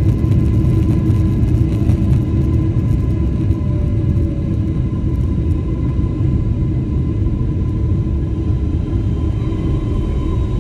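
Airliner cabin noise during the landing roll: a loud, steady rumble of the jet engines and the wheels rolling on the runway, with a thin steady whine above it, easing slightly after a few seconds.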